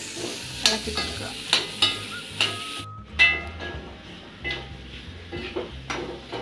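Chicken pieces sizzling as they fry in a stainless steel kadai, stirred with a metal spoon that scrapes and clinks against the pan several times. The sound cuts out for a moment about three seconds in.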